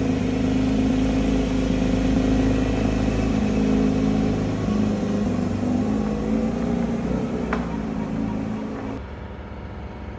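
Porsche 911 Speedster's naturally aspirated flat-six running at low speed as the car drives slowly off, a steady note whose pitch shifts a little midway, with a single short click about seven and a half seconds in. The engine sound stops abruptly about nine seconds in, leaving quieter background.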